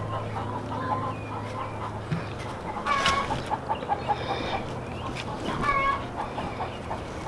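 Chickens clucking, with louder drawn-out hen calls about three seconds in and again near six seconds, over a low steady hum.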